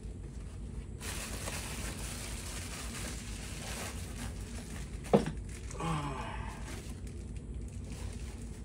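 Plastic bag and paper wrapping crinkling and rustling as a parcel is unwrapped by hand. There is a brief vocal sound a little after five seconds in, and a faint murmur just after it.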